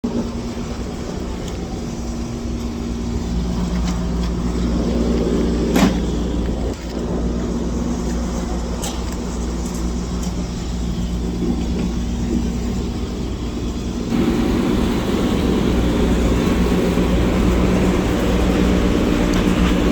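Steady low rumble of a road vehicle, with a sharp click about six seconds in. The sound turns fuller and brighter about fourteen seconds in.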